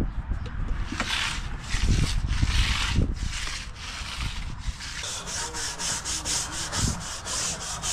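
Steel hand tool scraped over fresh concrete in uneven strokes, then, about five seconds in, a scraper blade rapidly scraping wet concrete off a finishing float to clean it, about three scrapes a second.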